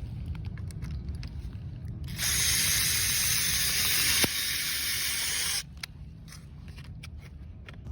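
A steady spray hiss, like gas or air rushing from a nozzle, starting abruptly about two seconds in and cutting off sharply about three and a half seconds later, with a single click partway through. A low rumble runs underneath.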